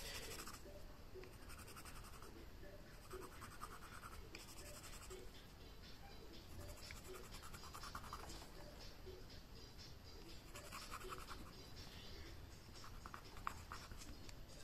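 White coloured pencil scratching faintly across card coated with dried tempera, in short repeated strokes; the tempera coat makes the surface very rough and scratchy.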